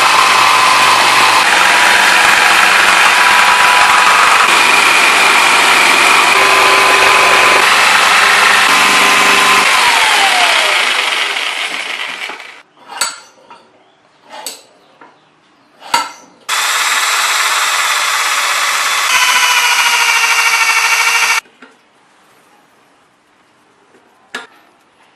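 Motor-driven seed-shelling machine running loudly and steadily, then winding down as the motor is switched off about ten seconds in. A few sharp knocks follow, then the machine runs loudly again for about five seconds and cuts off suddenly.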